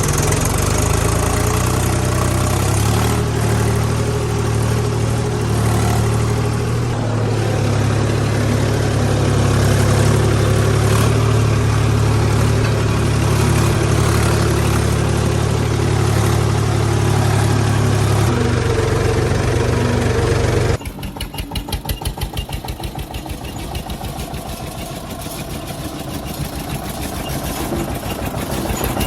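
Tractor engine running with a steady, loud drone. About 21 seconds in it drops to a quieter, even chugging idle.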